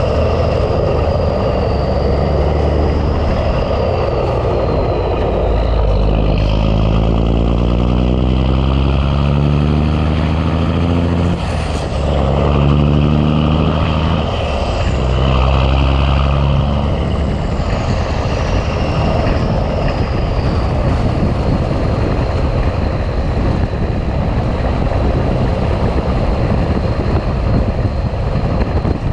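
Big Cam Cummins inline-six diesel in a Ford LT9000 heavy truck pulling under load and working up through the gears. The engine pitch climbs, drops at a shift about 11 seconds in, climbs again and shifts once more, then settles into a steady drone.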